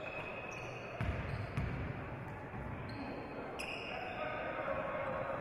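Basketball bounced on a hardwood gym floor during play, a few low thumps with short high squeaks of sneakers on the court and players' voices calling out.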